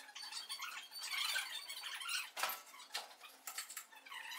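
Faint scattered clicks and squeaks from a hand pallet truck being pulled and worked under a heavy machine.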